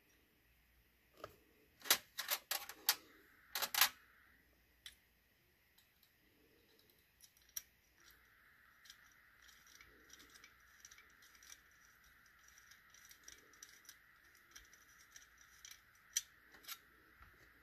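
Small metal parts clicking and tapping as a Raspberry Pi board, tower cooler and metal case are fitted together and screwed down with a small screwdriver. A burst of sharp clicks comes in the first few seconds, then light scattered ticks over a faint steady hiss.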